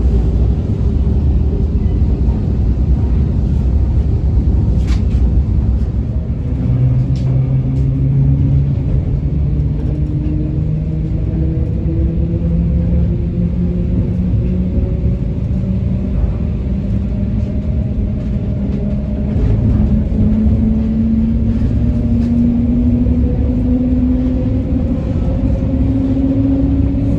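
Electric suburban train accelerating: the whine of its traction motors rises slowly and steadily in pitch over a heavy, steady rumble of running noise, with a few faint clicks.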